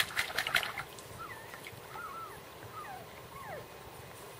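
Water splashing from paddling for about the first second, then a 5-week-old weimaraner puppy whimpering: several short, high whines that mostly slide down in pitch.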